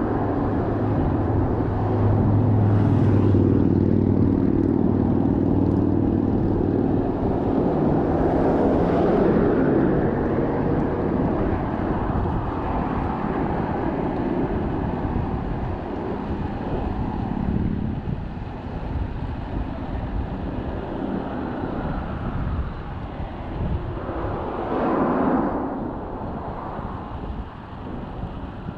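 Road traffic noise on a busy road, with a large vehicle's engine hum that holds steady and then fades after about ten seconds. Vehicles swoosh past three times.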